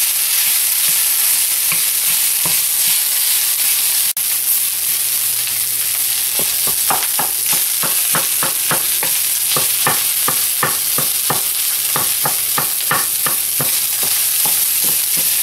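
Rice and vegetables sizzling in oil in a frying pan, with a utensil striking the pan to break apart clumps of room-temperature rice. The strikes come thick and fast from about halfway in, a few a second, over the steady sizzle.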